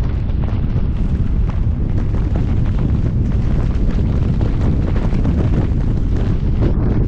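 Wind buffeting the microphone of a roof-mounted camera on a fire engine moving at highway speed: a loud, steady, fluttering low rumble, with road and engine noise mixed in.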